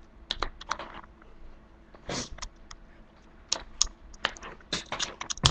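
Sparse keystrokes on a computer keyboard: a few quick clicks, a pause, then more clicks in small clusters. There is one brief rushing noise about two seconds in.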